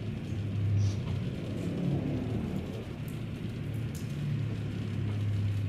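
A steady low hum of room noise that swells and fades, with a few faint clicks.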